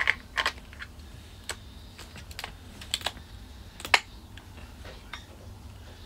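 Irregular light plastic clicks and taps, about a dozen, from a lithium-ion battery pack being worked onto the back of a Baofeng handheld radio that will not yet seat; the sharpest click comes about four seconds in.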